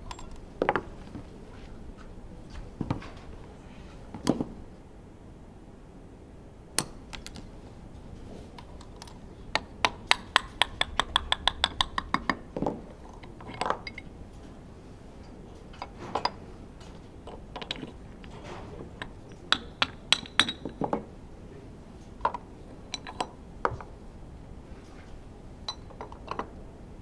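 Light metallic clinks and knocks of Honda RA100E V10 pistons and connecting rods being handled on a workbench, scattered through, with a quick run of ringing metal clicks lasting a few seconds about ten seconds in and another cluster around twenty seconds in.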